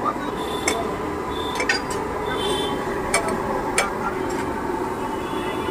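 Steel utensils clinking and scraping on a large cooking griddle: about half a dozen sharp metallic clinks, some briefly ringing, over steady background noise.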